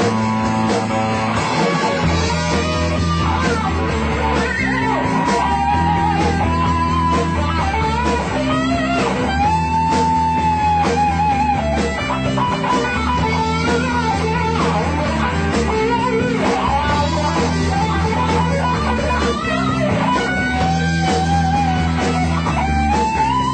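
Live rock band playing an instrumental passage on electric guitars, bass guitar and drums. A lead electric guitar holds bent notes with vibrato over a steady rhythm section.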